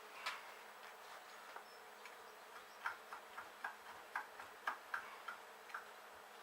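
Light metallic clicks from a spanner working a seized bolt back and forth: one sharp click just after the start, then about a dozen quicker clicks around the middle, over a faint steady hum.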